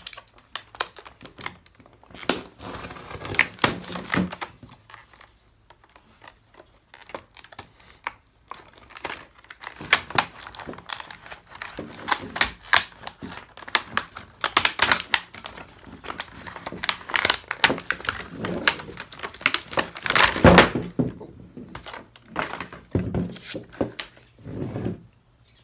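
Packaging being torn and crinkled open while a metal pipe clamp is unboxed and handled: a long run of irregular rustling, tearing and clunks of metal parts knocking together.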